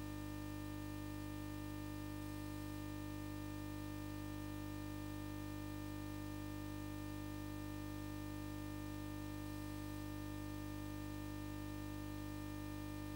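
Steady, unchanging hum made of several fixed tones, with no other sound over it.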